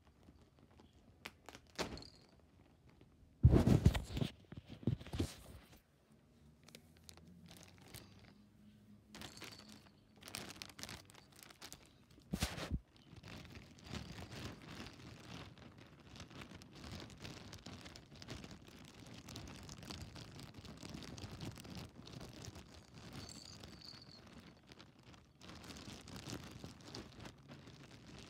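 Packaging being handled and torn open: a few sharp knocks in the first half, then steady crinkling and rustling from about halfway through.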